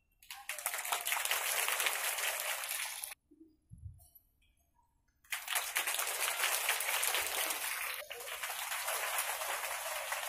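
Crowd clapping, a dense patter of many hands, in two stretches with about two seconds of near silence between them.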